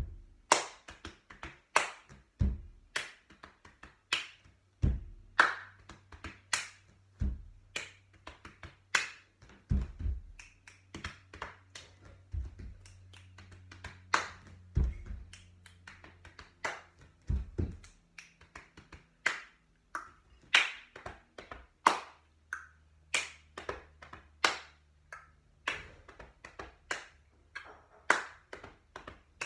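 A percussion rhythm composition: a fast pattern of sharp snaps and taps, several a second, with a deep thump about every two and a half seconds and low held tones underneath.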